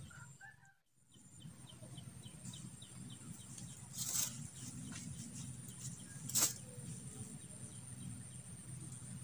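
Faint open-air ambience: a bird's short chirps repeated about three times a second, over a steady low hum and a thin high whine, with two sharp knocks about four and six and a half seconds in. The sound briefly cuts out about a second in.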